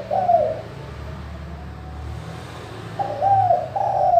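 Spotted dove cooing in its phrase of three curved notes. The last note of one phrase ends just after the start, and after a pause of about two and a half seconds the next phrase begins near the end.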